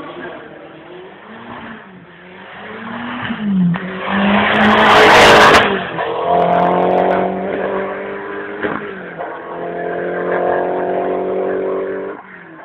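Race car engine accelerating hard from a hill-climb start, loudest as it passes close about five seconds in, then revving up through the gears as it climbs away, with a gear change about nine seconds in. The sound cuts off near the end.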